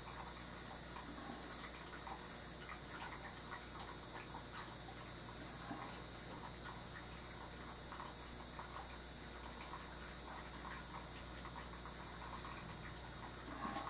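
Bristle brush dabbing and dragging oil paint on a painting panel: a string of soft, irregular little ticks and scrapes over a steady low hum and hiss.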